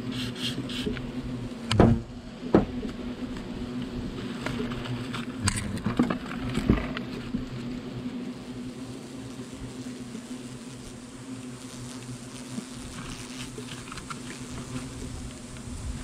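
A swarm of European hornets buzzing steadily around their disturbed nest in a brick chimney, the colony agitated. A few sharp knocks and scrapes from handling against the brickwork stand out about two and six seconds in.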